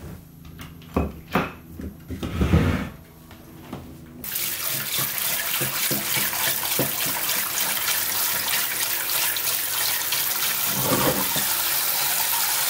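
Brown rice being washed: dry grains rattle out of a metal scoop into a stainless steel pot about two seconds in, then from about four seconds a kitchen tap sprays steadily into the pot while a hand swishes the rice in the water.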